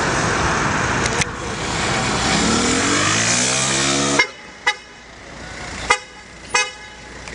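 Street traffic noise, with a car's engine rising steadily in pitch as it accelerates. The sound then drops off suddenly and a few sharp knocks with a short ringing follow.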